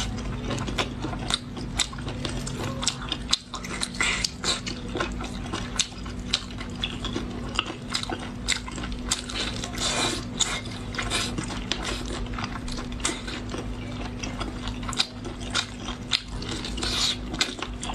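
Close-miked eating of small octopus: a dense run of wet biting, chewing and crunching clicks, with a steady low hum underneath.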